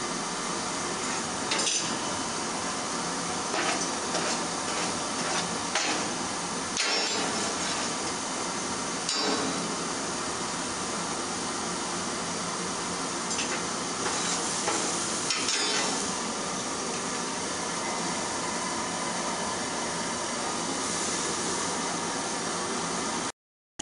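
Coal forge fire under an air blast, a steady rushing noise, with scattered metallic clinks and knocks as the steel plate held in tongs is shifted about in the burning coal.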